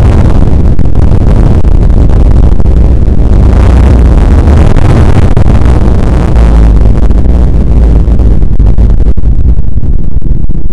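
Audio of a room shaking in an earthquake, slowed down sixteen times and bass-boosted so that it becomes a very loud, deep rumble. A hissing noise swells around the middle and fades away in the last few seconds.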